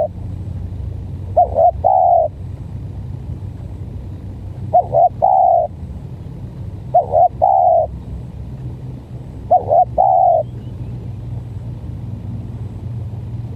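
Spotted dove cooing: four phrases about two to three seconds apart, each two quick short notes followed by a longer note. A steady low rumble runs underneath.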